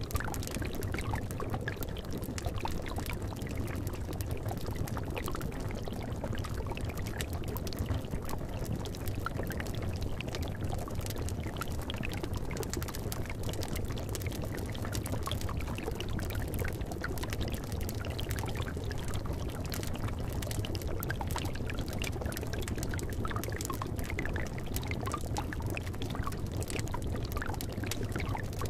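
Bubbling cauldron: liquid boiling and gurgling steadily, with a constant scatter of small irregular pops.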